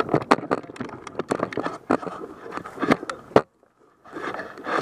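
Rustling and crunching of a player moving through grass in gear, picked up close to a helmet-mounted camera, with many sharp irregular clicks and crackles. The sound cuts out abruptly for under a second near the end, then the rustling resumes.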